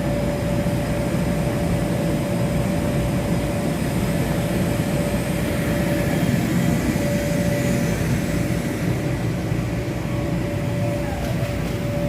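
Electric air blowers running steadily to keep inflatable slides inflated, a constant whooshing drone with a steady hum tone.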